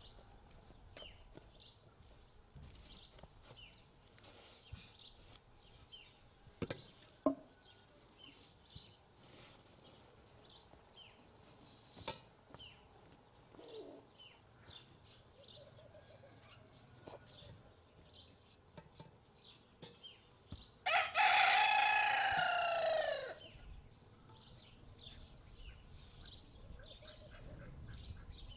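A rooster crows once, a single long cock-a-doodle-doo of about two seconds a little past the middle, rising and then falling in pitch. Faint short chirps sound throughout.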